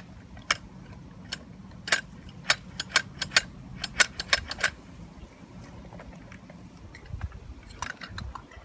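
Sharp clicks and taps from the hand-worked lifting arms and tipping container of a diecast front-loader garbage truck model: about a dozen in quick succession in the first half, then a few more near the end.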